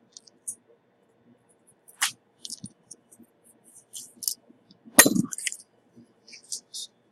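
Light clicks and clinks of small metal hand tools being handled and set down at a soldering bench, with a sharp click about two seconds in and one louder clatter about five seconds in.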